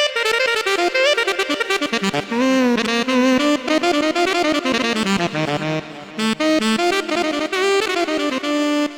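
Korg Krome keyboard playing a sampled reed wind-instrument voice in a Balkan/Turkish style: fast, ornamented melodic runs with pitch slides. It cuts off abruptly at the very end.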